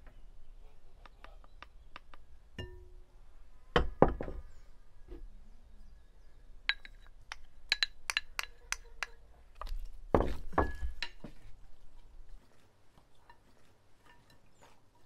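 Dishes and a wooden spoon clinking and knocking while fish is seasoned in a glass mixing bowl: a run of quick sharp clinks in the middle, and two heavier knocks about four and ten seconds in.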